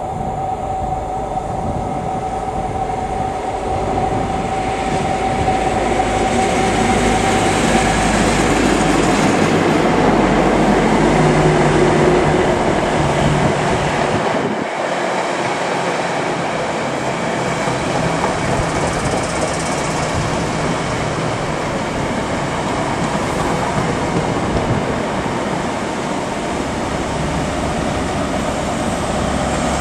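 Class 43 High Speed Train arriving: the leading power car's diesel engine draws near with a steady whine and grows louder, peaking as it passes. Then the coaches run by with steady wheel-on-rail noise. Near the end the rear power car's engine hum comes in.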